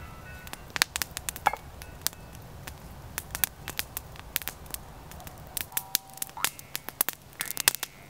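Wood campfire crackling, with frequent sharp irregular pops.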